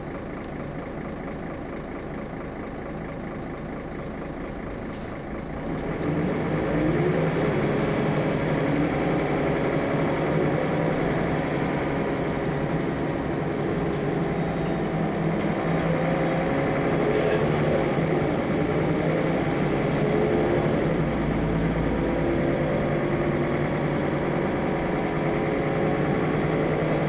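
Volvo single-deck bus engine heard from inside the cabin at the rear. It runs steadily and quietly at first, then grows louder about six seconds in as the bus pulls away. Its note then rises and drops repeatedly as it accelerates through the gears.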